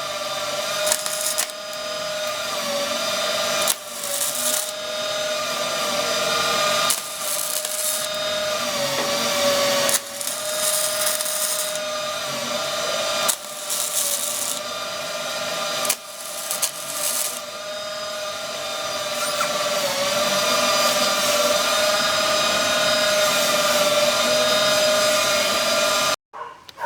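Angle grinder running against car-body sheet steel while cutting out rusted metal, in several passes with short breaks, its pitch sagging each time it bites into the steel.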